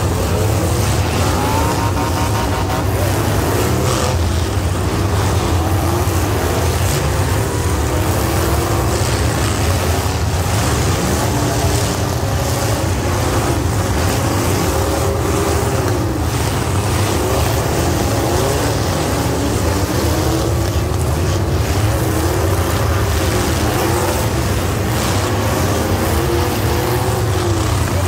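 Demolition derby cars' engines running hard over a steady low rumble. Several engines rev up and down at once, their pitches rising and falling over one another.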